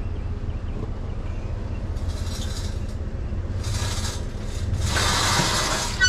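A vehicle engine running with a steady low rumble, broken by three bursts of hissing noise about two, four and five seconds in, the last one the longest and loudest.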